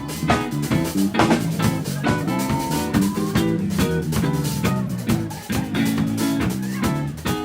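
Live band playing, with guitar and drum kit.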